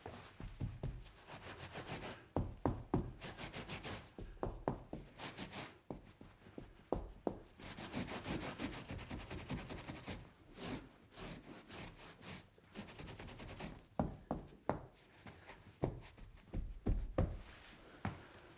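Foley of a spill being cleaned up: repeated rubbing and scrubbing strokes, with scattered knocks and thuds throughout.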